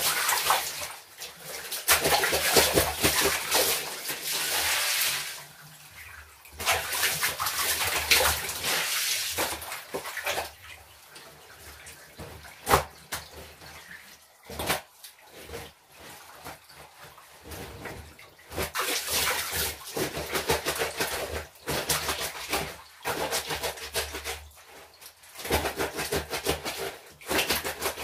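Clothes being washed by hand in a plastic basin: water splashing and sloshing as wet clothes are scrubbed, wrung out and dunked, in bursts of a few seconds with short pauses between.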